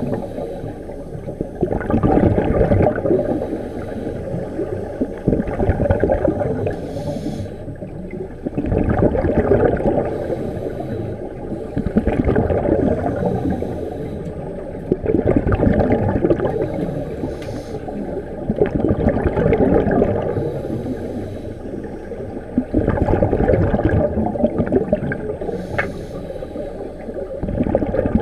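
Scuba regulator exhaust bubbles heard underwater, a bubbling gurgle that comes in bursts roughly every three to four seconds, one with each breath the divers let out.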